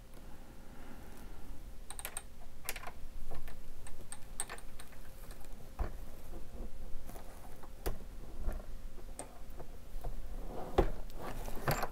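Light clicks and handling of a bullet being set on a .30-06 case and seated in a Hornady single-stage reloading press, with a few sharper knocks of the press stroke.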